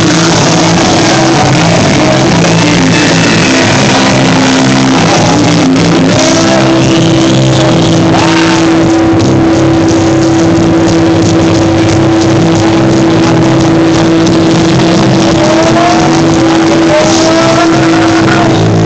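Loud, distorted live rock band, with the recording overloaded throughout. A long held note runs over a shifting low riff, and sliding, squealing pitches come in and out on top.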